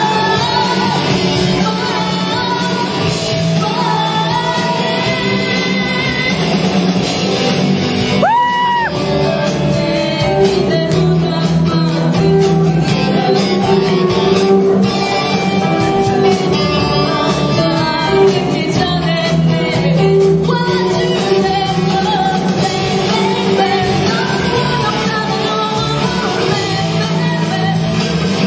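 Live rock band playing: sung and shouted vocals over electric guitar and drums. A high sliding vocal note comes about eight seconds in.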